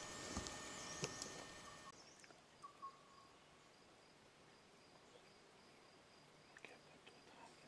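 Near silence: faint woodland ambience with a few light knocks in the first two seconds, then scattered faint ticks and a short chirp.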